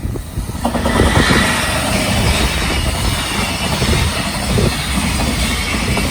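Long freight train running past at speed, steel wheels clattering over the rail joints under a loud rushing rail noise; it comes in suddenly about a second in and stays loud.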